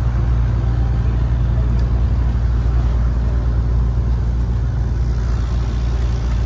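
Engine of a small river ferry running steadily while under way, a deep unchanging drone.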